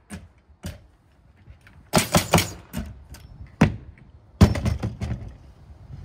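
Irregular sharp knocks and thuds of wood construction work, some single and some in quick clusters of four or five. The loudest knock comes a little past the middle.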